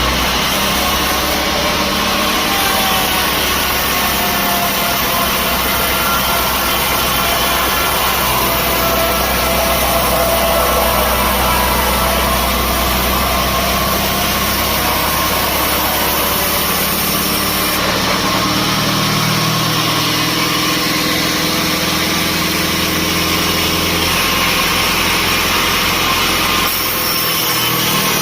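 Sawmill machinery running steadily, an engine-driven drone whose low tones shift a few times.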